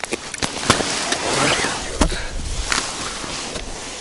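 Close rustling and scraping with many sharp knocks and clicks: handling noise from clothing and gloved hands right at the microphone while a freshly caught perch is taken in hand.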